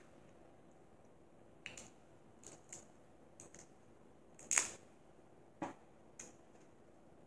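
Sporadic small cracks, clicks and snaps of Dungeness crab shell being picked apart by hand, mixed with close-up chewing and mouth sounds; one louder snap about four and a half seconds in.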